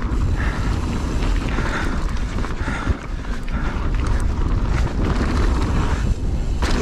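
Wind rushing over the microphone and the steady clatter of a mountain bike descending a rough trail at speed, its tyres running over roots and stones.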